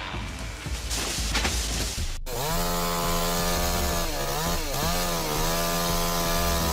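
A burst of crackling noise, then, after an abrupt break about two seconds in, a chainsaw running at high revs whose pitch dips twice a little later, as if bogging in the cut.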